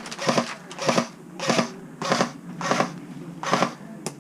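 Footsteps of a player walking on a rough, gritty surface at a steady pace, about seven steps. There is one sharp click near the end.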